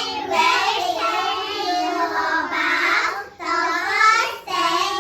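Young children singing in high voices, held phrases broken by two short pauses.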